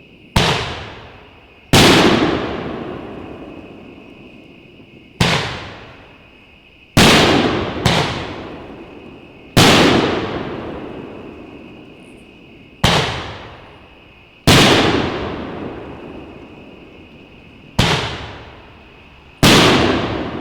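Shots from a 9-shot, 2-inch Nishiki firework cake: sharp booming reports about every one to three seconds, some close together, each trailing off in a long rolling echo.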